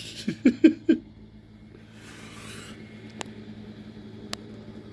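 Steady low drone of an idling machine engine from the tree-removal crew's equipment. About two seconds in comes a brief rustling crash, typical of cut branches or wood dropping, and two sharp clicks follow later.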